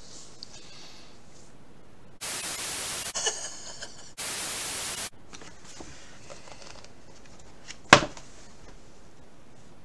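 Two bursts of static hiss, each about a second long and a second apart, with a short, fainter sound between them. Near the end comes a single sharp thump, the loudest sound.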